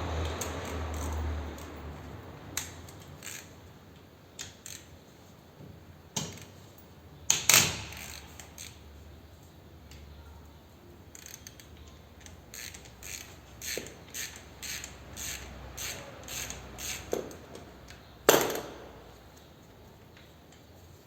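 Hand tools working on a motorcycle's rear brake caliper: scattered metal clicks, a run of evenly spaced ticks about twice a second around the middle, and two louder metallic knocks, one about seven seconds in and one near the end.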